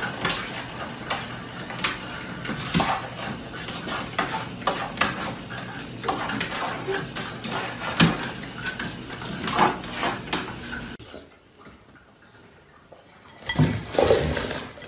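A pug's paws scrabbling at a wall-mounted metal toilet-paper holder, setting it rattling and clinking in quick, irregular clicks. About eleven seconds in it goes much quieter, with a brief clatter near the end.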